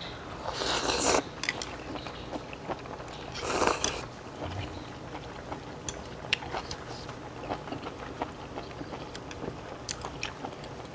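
Close-miked eating of hot-pot food: two loud slurps, about a second in and again near four seconds, then chewing with scattered small clicks of chopsticks on a bowl.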